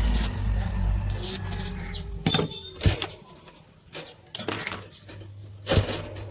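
Steady low electrical hum from a jammed Bajaj wall fan's motor, powered but not turning, the sign of a failed motor. A few sharp knocks and clicks of handling fall through it, the loudest about three seconds in and again near the end.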